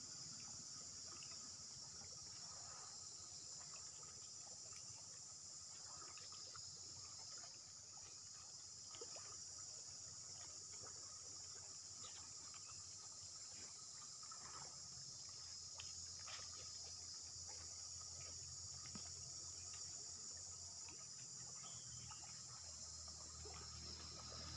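Faint, steady, high-pitched insect chorus, with a low rumble building up near the end.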